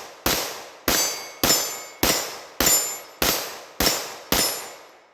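About eight gunshots fired at a steady pace of nearly two a second, each followed by a decaying echo, as part of a rapid timed string of fire.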